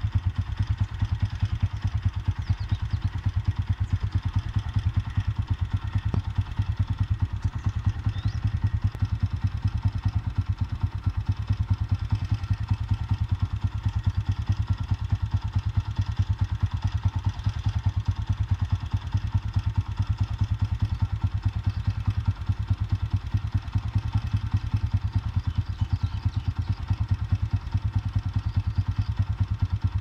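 An engine idling steadily, with a fast, even low thumping.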